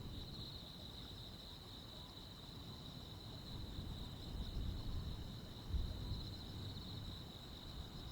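Night chorus of crickets and other insects chirping steadily in one high, pulsing band. A low rumble runs underneath, with a brief low thump a little before six seconds in.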